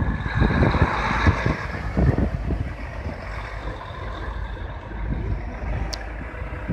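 Volvo FH truck tractor units' diesel engines running as they drive past at low speed, a steady low rumble, with a hiss in the first two seconds.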